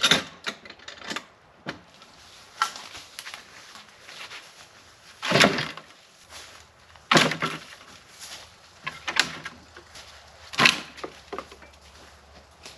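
Wooden knocks and thuds of logs being handled and dropped: a run of irregular sharp impacts a second or two apart.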